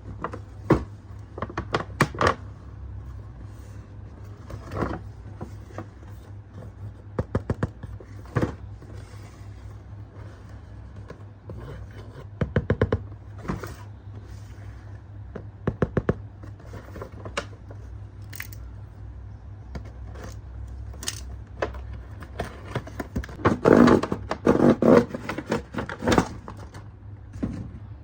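Handling noises of toys being unboxed: scattered sharp clicks, taps and scrapes over a steady low hum, with a busier run of knocks and scraping near the end.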